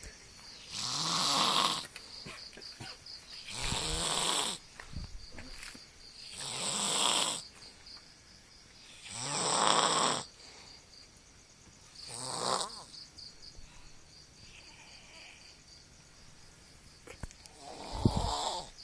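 A teenage boy snoring loudly with an animal-like sound: six long, rough snores about every three seconds, with a longer pause before the last one.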